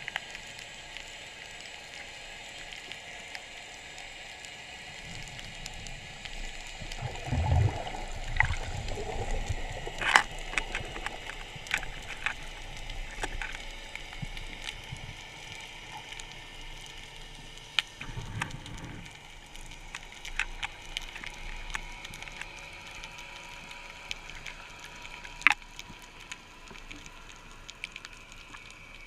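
Water ambience: a steady hiss with scattered sharp clicks, and a couple of brief low rumbling gurgles.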